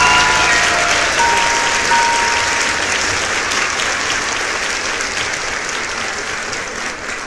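Applause, many hands clapping, slowly fading away. A few held music notes die out in the first two seconds or so.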